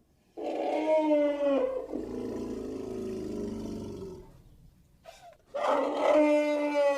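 Elephant trumpeting: a loud, brassy call starting about half a second in, which after a second or so drops into a lower, rougher roar that fades out around four seconds. After a short pause, a second trumpet call begins near the end.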